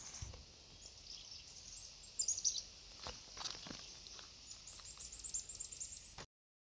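Birds chirping: short high calls about two seconds in and a quick run of them near the end, over faint outdoor background with a few soft clicks. The sound cuts off abruptly just before the end.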